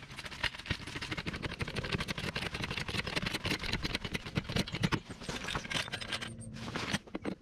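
Dense, irregular metallic clicking and scraping as the front of a car is raised on a jack, easing briefly near the end.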